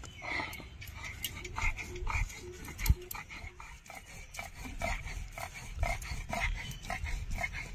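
Tomato being cut by hand against an upright boti blade: soft, irregular slicing clicks. Short, repeated animal calls sound in the background.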